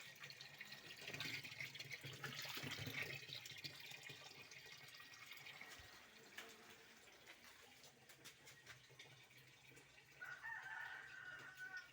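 Faint rooster crowing near the end, one drawn-out call over quiet background noise.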